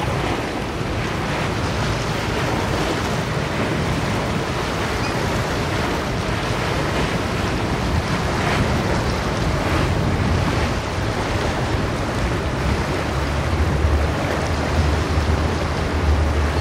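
A Lazzara motor yacht running past at cruising speed: a steady rush of water from its bow wave and wake over a low engine rumble, which grows stronger in the last few seconds.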